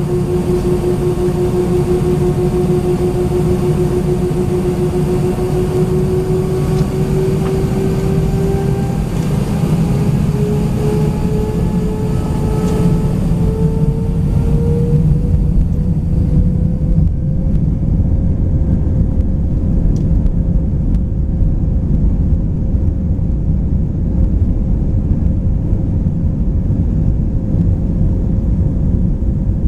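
Cabin noise of an Airbus A319-131 with its IAE V2500 jet engines under power: a steady low rumble with an engine whine on top that slowly rises in pitch over about ten seconds and then holds steady. About halfway through, the high airflow hiss drops away.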